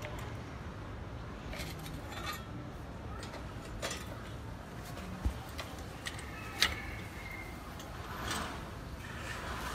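A few scattered light metal clicks and clinks of parts and tools being handled while the brush cutter's cutting blade is fitted to its gear head, with one dull knock about halfway through, over a faint low hum.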